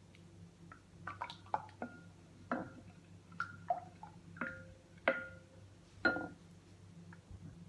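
Whisk stirring thin, runny batter in a glass mixing bowl: irregular clinks of the utensil against the glass, several with a short ringing tone, over wet sloshing of the batter. The loudest clinks come about five and six seconds in.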